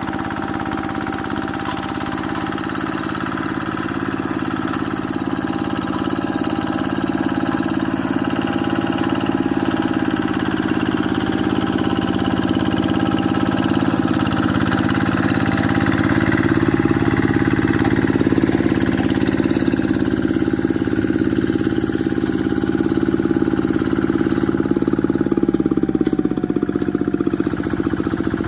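Quick G1000 two-wheel hand tractor's single-cylinder diesel engine running steadily, slowly growing louder, its pitch dipping slightly near the end.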